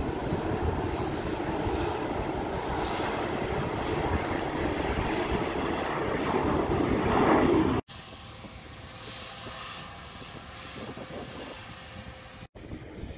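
Business jet's turbofan engines at takeoff power, a loud jet rumble and roar that swells as the jet climbs out and cuts off abruptly about eight seconds in. A much quieter steady rumble of the ramp follows.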